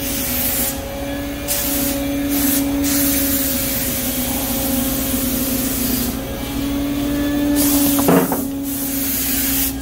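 Pneumatic paint spray gun shooting metal flake paint, a hiss that starts and stops several times as the trigger is pulled and released, with one longer pass in the middle. A steady low hum runs underneath.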